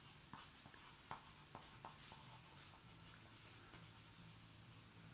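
Pencil writing on paper: faint, irregular scratches of the lead as words are written out.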